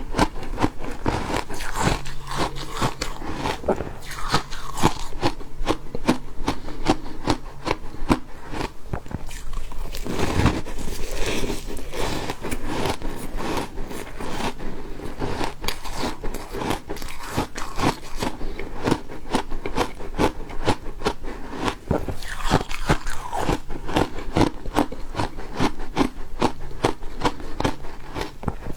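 Refrozen ice being bitten and chewed: a dense, unbroken run of crisp crunches.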